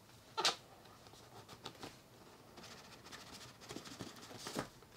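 Hands handling a cardboard laptop box: short scrapes and rubs of fingers on cardboard, loudest about half a second in and again near the end as the lid is slid up off the base.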